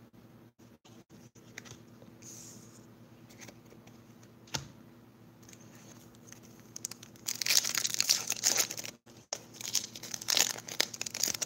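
Foil wrapper of a Pokémon Lost Thunder booster pack being crinkled and torn open, in two loud spells of crackling in the last few seconds. Before that come soft handling sounds and one light tap.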